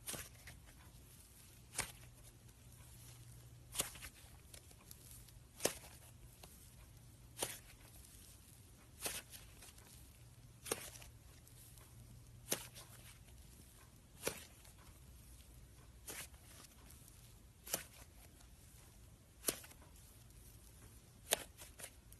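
Slime being handled, giving about a dozen short, sharp pops or clicks evenly spaced just under two seconds apart, over a faint low hum.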